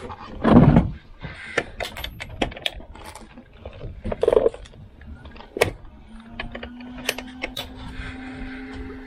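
Knocks and clatter of fishing gear handled at a boat's rail, with two louder rustling thumps. About six seconds in, a steady electric motor hum starts and holds: an electric deep-sea fishing reel winding in line.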